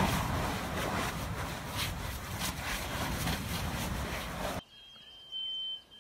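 Kilauea lava fountain at an erupting fissure: a steady, loud rushing noise with many crackling pops of spattering lava. It cuts off suddenly about four and a half seconds in, and a high steady beep sounds near the end.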